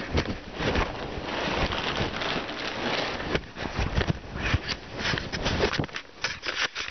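Handling noise from the recording device: continuous rubbing and rustling on the microphone with many irregular knocks and bumps.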